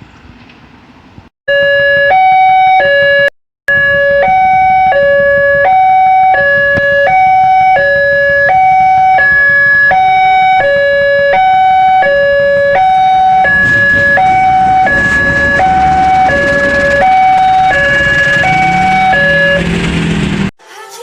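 A railway level-crossing warning alarm sounding, a loud electronic two-tone alternating between a lower and a higher note about once a second. From about two-thirds of the way in a rumbling noise builds up under it, and both stop abruptly near the end.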